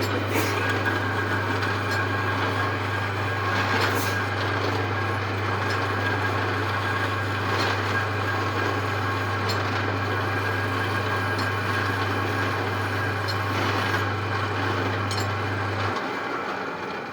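Metal lathe running, a steady machine noise with a low motor hum and a few faint knocks; the hum cuts off shortly before the end and the noise begins to die away.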